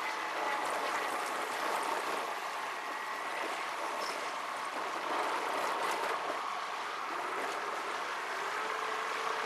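Road and engine noise inside a moving car, played back sped up: a steady hiss with faint whining tones that drift slowly in pitch.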